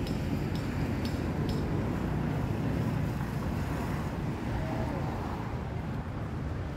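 Steady low rumble of distant road traffic, with a few faint ticks in the first second and a half.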